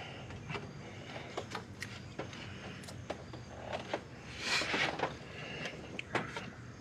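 Hand-tool work in a car's engine bay: scattered light clicks and knocks from a socket ratchet and parts being handled, with a short rasping burst about four and a half seconds in.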